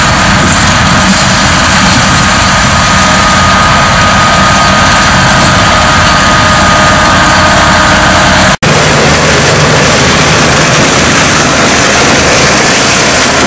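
Self-propelled sugar beet harvester at work: loud, steady engine and harvesting machinery noise with a thin steady whine. About eight and a half seconds in it cuts off abruptly and gives way to a different machine's engine noise.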